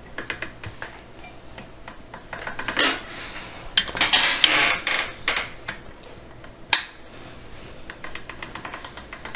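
Hard objects being handled on a worktop: scattered clicks, light scraping and clatter, busiest from about four to five and a half seconds in, with one sharp click near seven seconds.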